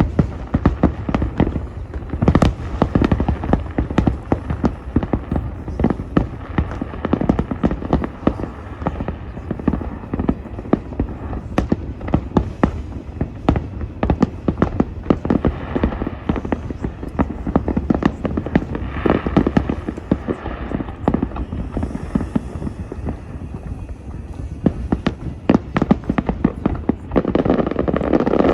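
Aerial fireworks display: a dense, continuous run of bangs and crackles over a low rumble, growing louder near the end.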